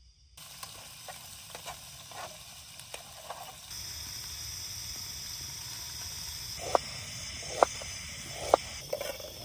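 Steady hiss of a portable gas burner under a pan, then a knife cutting through hard-boiled egg and striking a plastic cutting board: three sharp knocks less than a second apart near the end.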